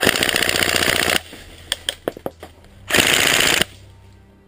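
Tokyo Marui M4 SOPMOD airsoft electric gun firing on full auto: a burst of about a second, a few single clicks, then a second, shorter burst near three seconds in.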